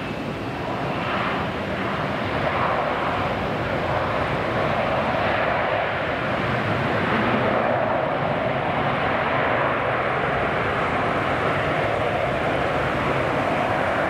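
Airbus A320-232 jet engines (IAE V2500) on the landing roll-out just after touchdown: a steady rushing jet noise that swells about a second in and then holds.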